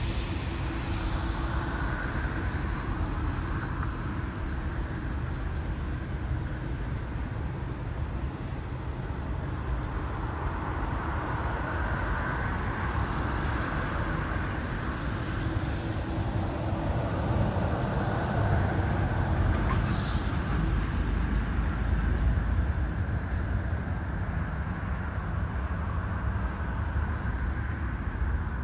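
Boeing 787-8 jet airliner engines as a steady low rumble that swells slightly in the second half, with a brief high-pitched sound about twenty seconds in.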